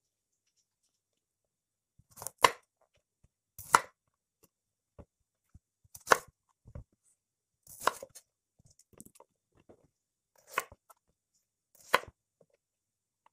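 Kitchen knife cutting through bitter melons and striking a wooden cutting board: six separate crisp chops, spaced a second or two apart.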